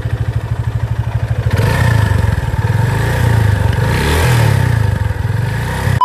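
Yamaha FZ25's single-cylinder engine idling with an even pulse, then revved with throttle blips from about a second and a half in. It runs smoothly on a freshly fitted air filter.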